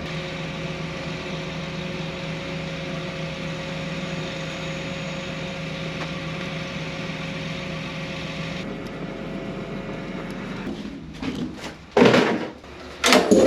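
A steady mechanical hum with a constant tone; it fades away near the end, and two loud bursts follow about a second apart as the cotton picker's diesel engine is cranked and starts after new fuel filters were fitted.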